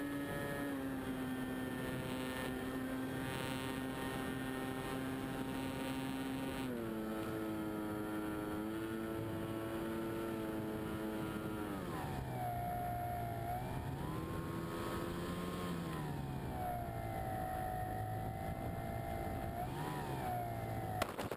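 Radio-controlled scale de Havilland Tiger Moth model's motor and propeller, heard from on board, running steadily on part throttle through a landing approach. The pitch rises about seven seconds in, drops around twelve seconds in, swells and dips again, and blips briefly near the end.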